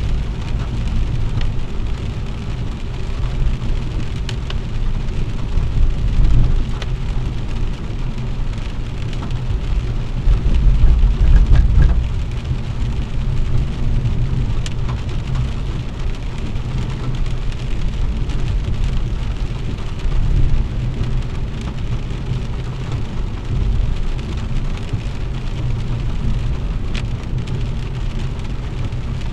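Heavy rain on a moving car, heard from inside the cabin over the low rumble of tyres on the wet road, with the rumble swelling twice and a few sharp ticks of drops on the glass.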